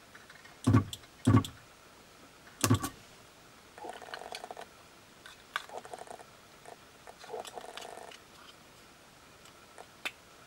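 Sunkko 737G battery spot welder firing three times in quick succession, three short loud bangs, welding connection tabs onto replacement li-ion cells. Softer handling and rustling of the cells follows, with one click near the end.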